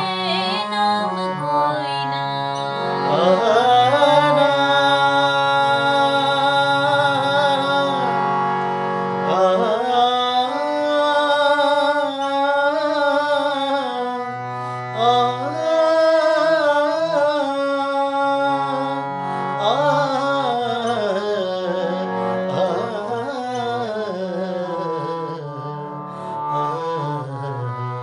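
A man and a woman singing a Punjabi Christian worship song over a melodic instrumental backing with held low notes; the music eases off a little in level near the end.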